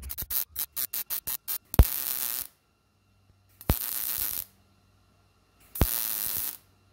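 Millermatic 211 MIG welder arc on a steel patch plate: a quick run of about ten short pops over the first second and a half, then three short welds of under a second each, each starting with a sharp crack and cutting off abruptly. The sputtering arc is put down to too much wire stickout.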